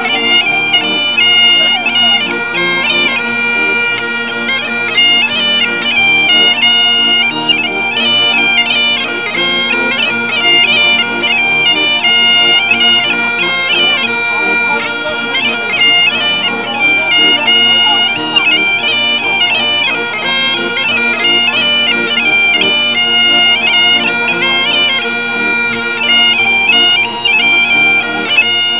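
Great Highland bagpipes playing a lively tune over their steady drones, with accordions playing along.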